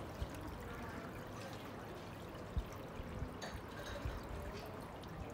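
Steady pouring and trickling of water from a small bubbling spout in a shallow wading pool, with a faint knock about halfway through.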